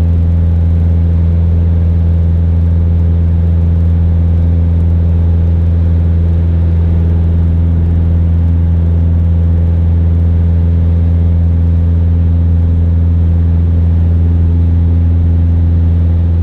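The Mooney M20J's 200 hp four-cylinder Lycoming engine and propeller running as a steady, loud drone in the climb. The engine is set to climb power at 25 inches of manifold pressure.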